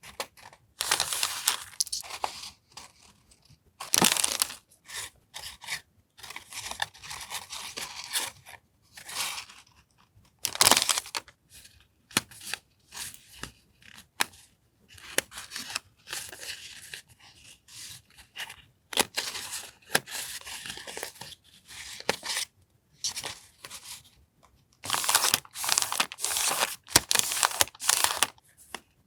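Paper journaling goods being handled and unwrapped: irregular bursts of rustling and crinkling, with a few sharp taps between them.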